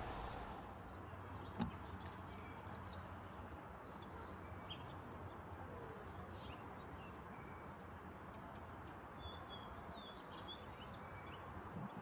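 Scattered short, high bird chirps and calls over a steady outdoor background hiss, with one brief knock about a second and a half in.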